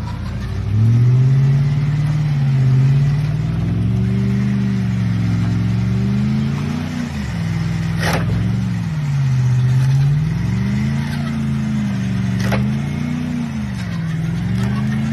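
Pickup truck engine revving up and down in repeated waves while the truck is stuck in deep mud, trying to drive out. Two sharp knocks cut in about halfway and again near the end.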